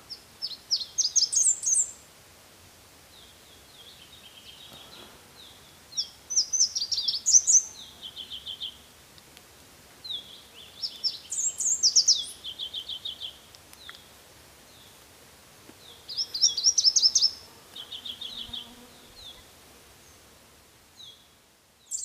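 Red warbler singing four songs a few seconds apart, each a quick run of high, rising notes that ends in a lower, even trill.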